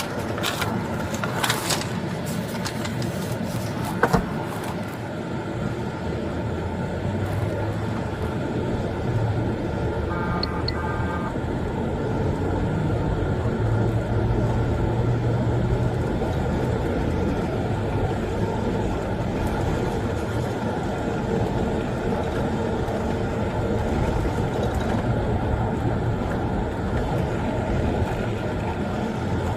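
Steady road and engine noise inside a moving patrol car's cabin. A few clicks come near the start, and a brief electronic beeping tone comes about ten seconds in.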